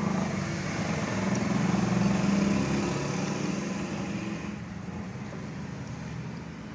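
Steady low motor hum, louder about two seconds in and duller and quieter after about four and a half seconds.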